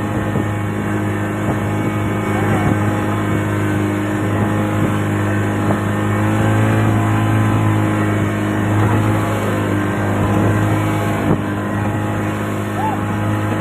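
A boat's engine running steadily at an even pitch, a low hum.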